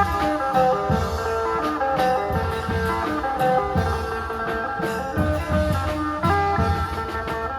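Isan phin, a Thai plucked lute, playing a quick running melody over a regular drum beat.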